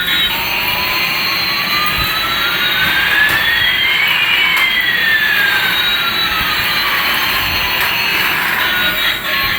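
Jet-engine sound effect: a steady whooshing hiss with two whistling tones, one rising and one falling, that cross midway and fade out near the end.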